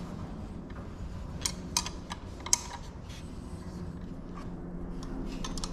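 Irregular light clicks and taps of hands and tools working at the front of a race car engine, over a steady low hum.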